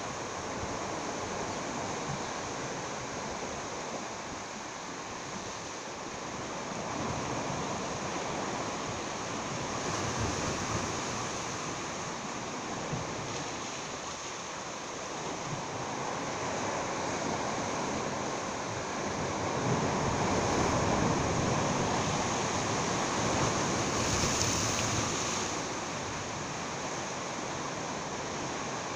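Sea surf washing against jetty rocks: a steady rush that swells louder twice, with some wind on the microphone.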